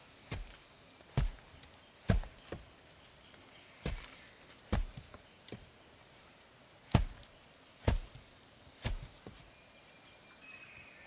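Axe chopping wood: about ten sharp strikes at an uneven pace, stopping about nine seconds in.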